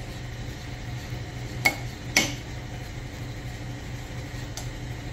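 A metal hand tool clinks sharply against a steel snowcat track: two ringing strikes about half a second apart, then a fainter one near the end. A steady low hum runs underneath.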